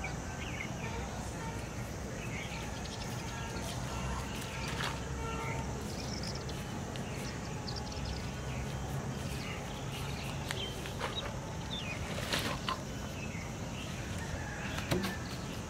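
Rural outdoor ambience: scattered bird chirps and calls over a steady low rumble, with a few short knocks, one about four seconds in and two more in the last few seconds.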